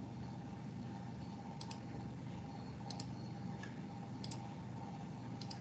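Faint clicks of a computer mouse, mostly in quick pairs about a second apart, over a steady low background hum.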